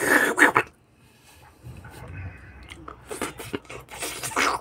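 Eating rice by hand from a metal plate: a loud rasping rub of fingers mixing rice against the plate at the start and again near the end, with irregular wet clicks and smacks of chewing in between.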